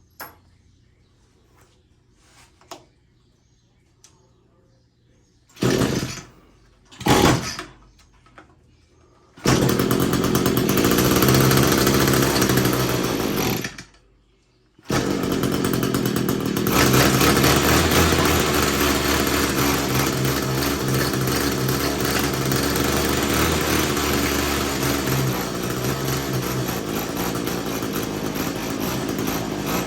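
Echo SRM-225 string trimmer's small two-stroke engine being started: two short bursts as it is cranked, then it catches and runs. It stops briefly after a few seconds, starts again and keeps running, its carburettor mixture screw just opened a little to cure bogging at full throttle and dying below it.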